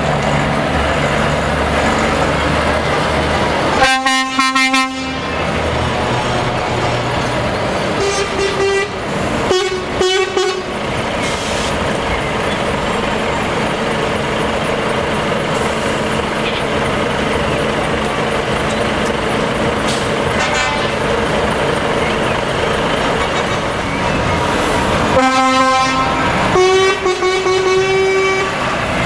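Heavy Volvo FH trucks' diesel engines running steadily as the lorries pull out one after another. Loud horn blasts sound about four seconds in, short toots follow around eight to ten seconds, and two more blasts come near the end, the last one held for a couple of seconds.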